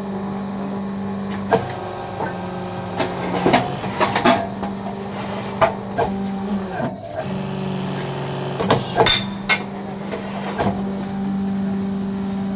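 The electric motor and hydraulic pump of a fly ash brick press hum steadily, with sharp metal clanks and knocks as the press lever is worked and mix is loaded. The hum dips and shifts in pitch briefly about seven seconds in.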